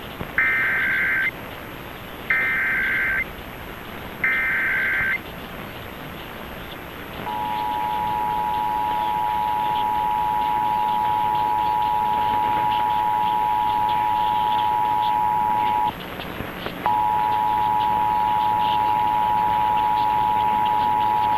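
Emergency Alert System test over AM radio. Three short screeching bursts of the digital data header come about a second apart, then the steady two-tone attention signal starts. The tone drops out for about a second two-thirds of the way in, then resumes.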